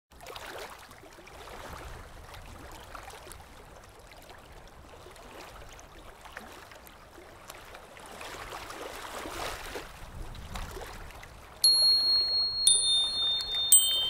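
Soft, water-like rushing that swells and fades gently. About twelve seconds in, clear chime notes begin, three strikes about a second apart, each ringing on.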